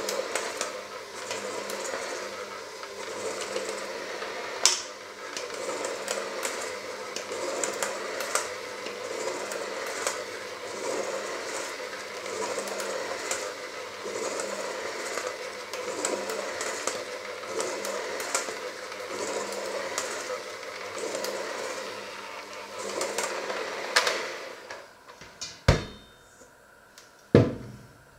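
Electric hand mixer running steadily as its beaters work a thick dough in a small steel pot, with scattered sharp clicks. The mixer stops about 24 seconds in, and two loud clunks follow.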